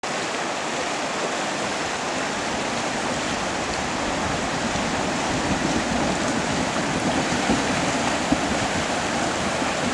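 Fast-flowing river rushing over a stony bed: a steady, even wash of water noise.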